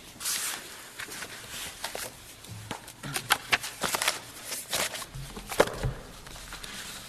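Courtroom rustling and shuffling: papers, movement and footsteps, a run of irregular soft knocks and rustles with a few sharper knocks in the middle, as one advocate leaves the lectern and the next comes up.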